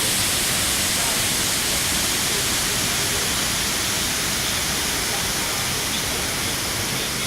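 Shifen Waterfall's falling water rushing as a steady, even hiss.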